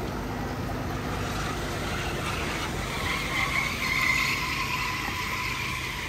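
A motor engine running steadily with a low hum. About two seconds in, a high, steady whine joins it.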